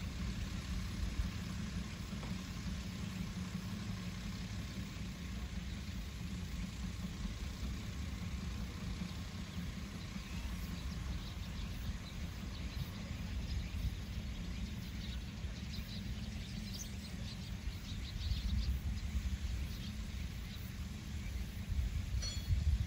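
Small narrow-gauge locomotive hauling an open passenger car, heard from a distance as a steady low rumble of the running train.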